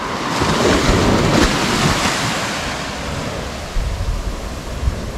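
Sea surf washing onto a sandy beach, swelling over the first couple of seconds and then easing off. Wind buffets the microphone in the second half.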